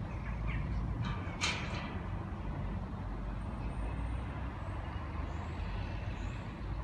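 Scania R560's V8 diesel engine running as the tractor unit rolls slowly, a low steady rumble. About a second and a half in comes a short, sharp air hiss from the air brakes, with fainter hisses just before it.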